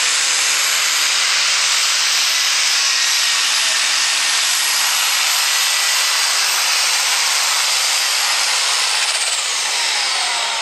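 Turbocharged diesel engine of a light pro stock pulling tractor running flat out as it drags the weight-transfer sled, a loud steady roar with a thin high whine above it. Near the end the pitch falls away and the level drops as the throttle comes off at the end of the pull.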